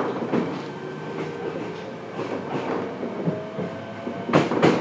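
Fukuoka City Subway 1000N series car running at speed, heard from inside: a steady rumble with a faint whine edging up in pitch. Wheels clack over rail joints in quick pairs, loudest near the end.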